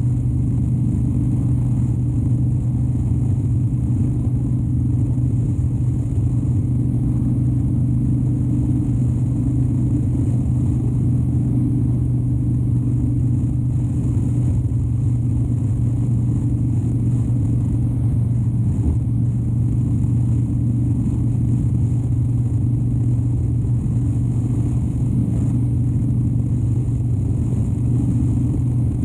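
2013 Harley-Davidson Dyna Wide Glide's 103-cubic-inch Twin Cam V-twin running on the move at a steady engine speed, with an even low exhaust note that holds a constant pitch throughout.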